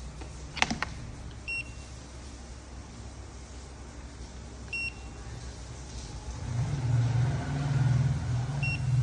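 Three short, high electronic beeps a few seconds apart, after a brief click. A low hum comes in about two-thirds of the way through and grows louder.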